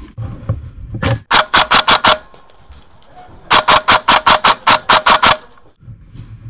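Airsoft rifle firing two bursts of rapid shots at about seven a second: a short burst of about six shots, then, after a pause, a longer burst of about a dozen.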